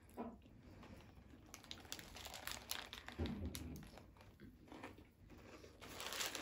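Paper fast-food packaging crinkling and rustling as food is handled, with a low thump about three seconds in; the crinkling grows louder near the end.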